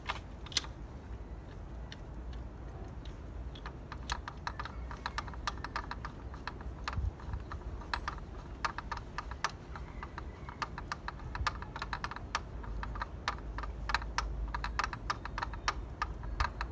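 Ratchet wrench clicking as a spark plug is tightened back into the cylinder head. The clicks are sparse at first, then come in quick irregular runs from about four seconds in.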